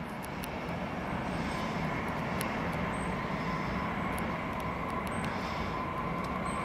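Stadler FLIRT 3 electric multiple unit moving off through the yard: its running noise carries a steady electric whine and slowly grows louder.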